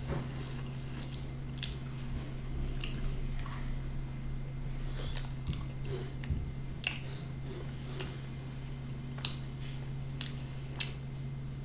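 A man chewing meat and farofa eaten by hand, with wet mouth and lip-smacking clicks, a few of them sharp, around seven, nine and eleven seconds in. A steady low hum runs underneath.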